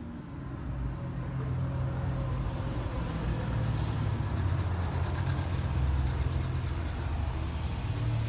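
A steady low rumble, rising about half a second in and then holding.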